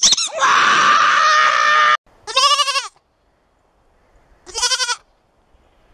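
A goat bleating twice, two quavering calls about two seconds apart. Before them, a loud, harsh sustained noise lasting about two seconds.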